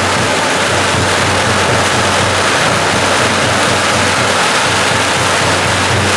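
Long strings of firecrackers going off together in a dense, unbroken crackle, loud and steady throughout.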